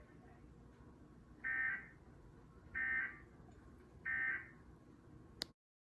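Three short warbling data bursts of an Emergency Alert System (SAME) end-of-message code from a weather radio broadcast, evenly spaced about 1.3 s apart, marking the end of the flood warning. A sharp click follows, then the sound cuts off.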